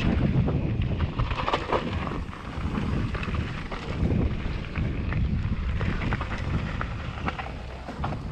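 Wind buffeting the microphone of a chest-mounted action camera on a mountain bike descent, a deep unsteady rumble, with scattered clicks and rattles from the bike and tyres on the trail.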